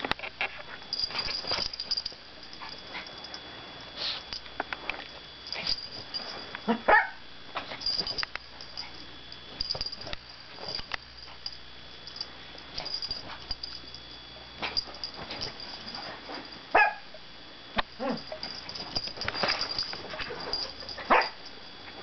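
A pet dog barking and growling at intervals, with short, sharp barks standing out several times, mixed with many small clicks and knocks.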